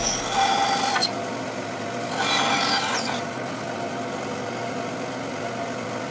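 Bandsaw running steadily, with two short cuts through a small wood block, each about a second long, the first at the start and the second about two seconds in.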